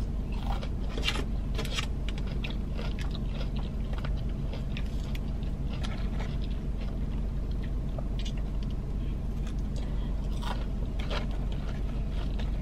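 Close-up chewing and mouth sounds of someone eating fried fast food, with scattered soft crunches over a steady low hum.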